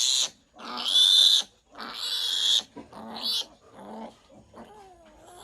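A piglet squealing in loud, high screams, each under a second long, while it is held for an iron injection, fading to a few low grunts about four seconds in.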